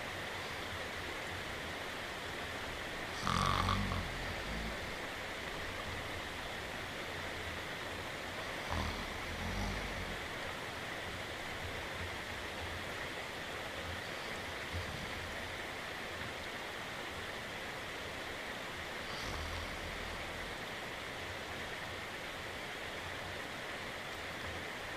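Steady rain hiss with snoring on top. The loudest snore comes about three seconds in, softer ones around nine to ten seconds, and a low one near twenty seconds.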